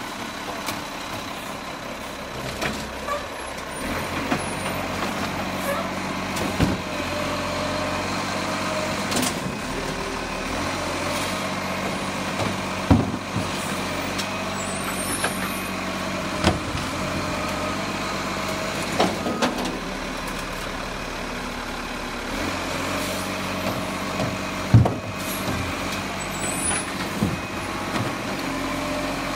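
Rubbish truck's diesel engine running steadily close by, with sharp knocks every few seconds. The loudest knock comes late on.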